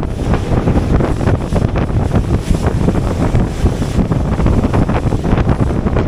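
Wind blowing hard across the microphone together with the rush of water along the hull of a small open motorboat running at speed, a loud, steady noise without a clear engine note.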